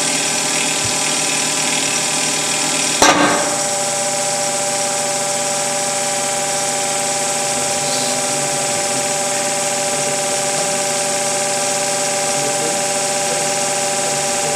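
Electric hydraulic pump of a CC-300 concrete compression tester running with a steady hum as it loads a concrete block. About three seconds in, a single sharp crack is heard as the block fractures under compression.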